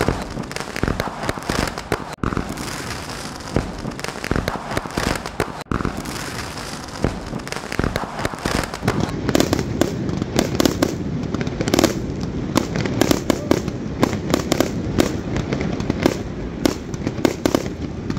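Fireworks display: a dense, continuous run of sharp bangs and crackling bursts, one after another, growing thicker about halfway through.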